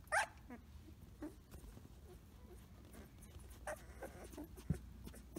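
Samoyed puppy giving a short, high cry that falls in pitch just after the start, then a fainter squeak a few seconds later: little puppy whimpers and roos. A soft knock near the end.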